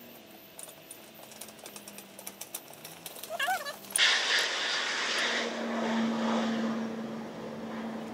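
Outdoor background with scattered faint clicks and a brief warbling chirp. About four seconds in, a loud, steady rushing roar with a low hum sets in: a stove with a tall chimney burning hard, flames jetting from the top of the stack.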